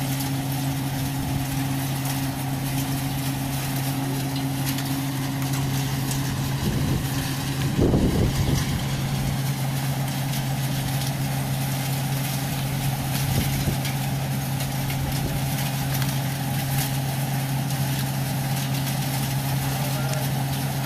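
Wheat-cleaning and sieving machine running steadily: a constant low hum with an even hiss of noise over it, and a brief louder low surge about eight seconds in.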